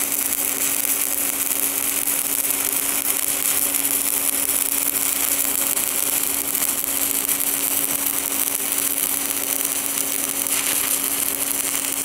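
Stick-welding arc from a 3/32-inch 7018 electrode at 85 amps DCEP, laying a fill pass on carbon-steel pipe: a steady, even crackling sizzle with a steady hum underneath.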